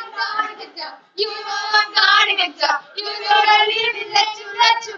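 A group of girls singing together loudly, with held notes and a brief break about a second in.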